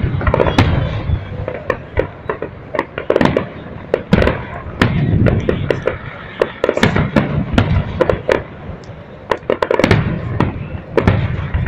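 Fireworks display: aerial shells bursting in a dense, irregular barrage of sharp bangs and crackles over deeper booms.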